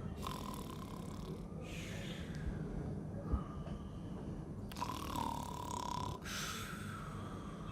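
A person snoring in sleep: two long snoring breaths about four and a half seconds apart, each lasting about a second and a half, with a whistling tone running through them.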